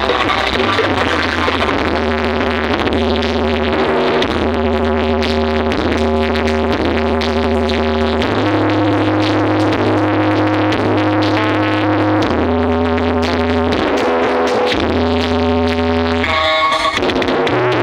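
Electronic synthesizer music with a heavy bass line played loud through a carnival sound system during a sound check, the bass note changing every couple of seconds under sustained chords, with a short break near the end.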